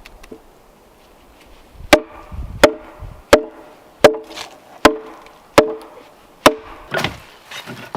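A hand tool striking wood in a steady rhythm: seven sharp blows about three-quarters of a second apart, starting about two seconds in, each with a short hollow ring.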